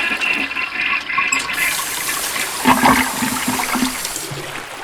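Toilet-flush sound effect: a rush of water that cuts off abruptly about four seconds in.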